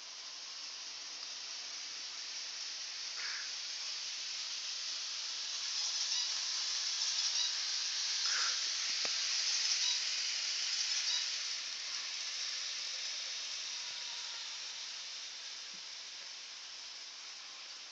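N scale model train running on its track: a steady high hiss from its small motor and wheels, growing louder for a few seconds in the middle as it passes close, then fading.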